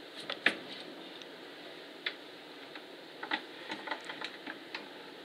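Irregular light clicks and small knocks of metal parts being handled and adjusted on a lathe set-up, about eight in all, over a faint steady hiss. The sharpest comes about half a second in, and several more are clustered in the second half.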